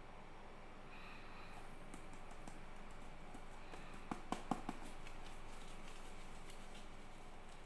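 Hard plastic of a Cadbury Dairy Milk Lickables cup and lid being handled: faint scattered clicks and crinkles, then four sharp plastic clicks in quick succession about four seconds in.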